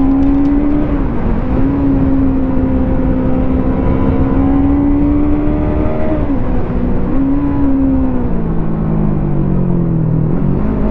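Motorcycle engine running at riding speed, its note steady with two brief dips, then falling in steps near the end as the bike slows.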